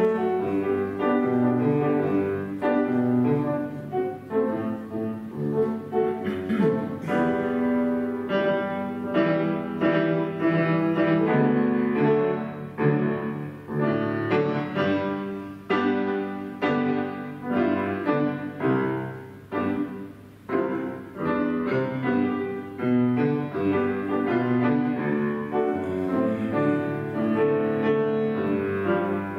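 Solo piano played live as silent-film accompaniment: a continuous run of chords and melody notes, softening briefly about two-thirds of the way through.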